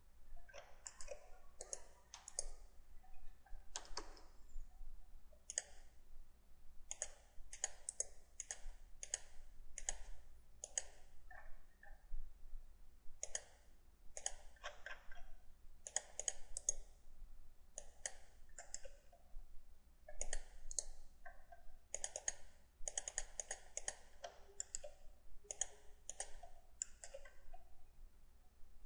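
Computer mouse buttons clicking repeatedly at an irregular pace, often in quick pairs and short runs.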